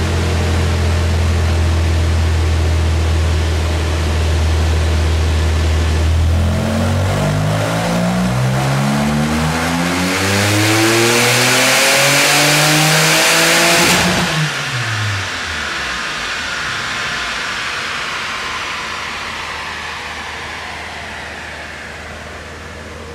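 Porsche 996 Turbo's twin-turbo flat-six through a SCART stainless sport exhaust, run on a chassis dyno: it holds a steady low engine speed, then pulls hard with revs climbing for about seven seconds and getting louder. The pull cuts off sharply about two-thirds of the way in, and the revs fall away into a fading hiss.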